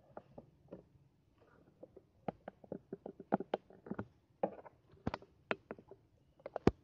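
A quick, irregular series of sharp clicks and taps, sparse at first, then denser and louder from about two seconds in, with the loudest knock near the end.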